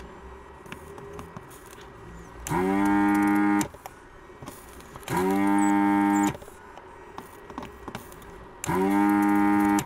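Vacuum pump of a desoldering station's gun switching on three times for about a second each, its pitch rising briefly as it spins up and then holding steady. It is sucking molten solder out of the joints of a transistor on a ZX Spectrum circuit board.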